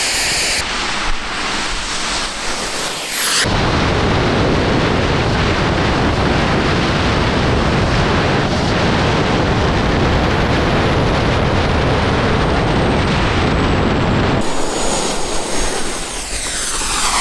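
Small jet turbine powering a go-kart: a high whine, then an abrupt switch about three and a half seconds in to a loud, dense roar lasting about eleven seconds, and a high whine again near the end.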